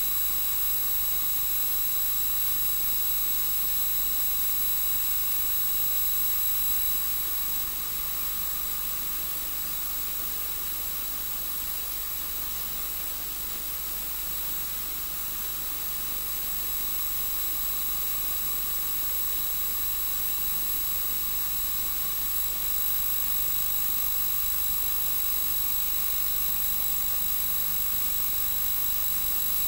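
Steady hiss with several constant high-pitched whining tones and a faintly wavering lower tone, unchanging throughout.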